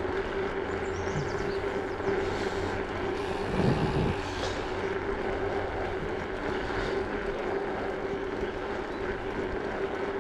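Wind rushing over the microphone and bicycle tyres rolling on asphalt while riding along a paved road, with a steady hum underneath. A brief low thump comes about four seconds in.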